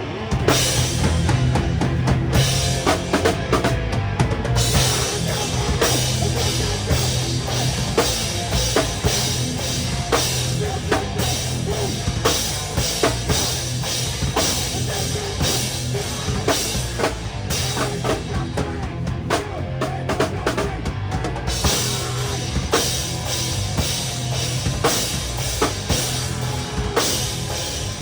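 A loud rock band playing live with no vocals: a drum kit out front, bass drum and snare hitting densely and steadily, over electric guitar and bass.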